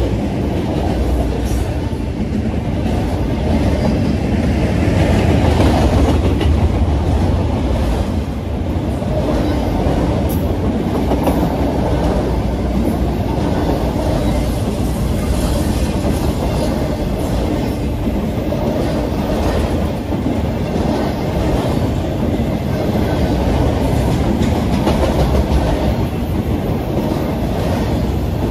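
Freight train rolling past, its cars and wheels making a steady rumble with clatter over the rails.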